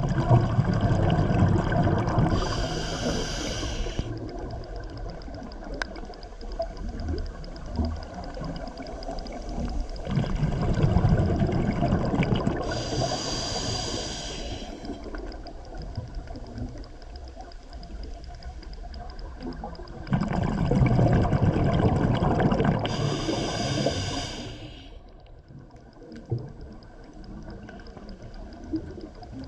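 Scuba diver breathing through a regulator underwater: three breaths about ten seconds apart. Each is a rush of bubbling with a short high hiss from the regulator.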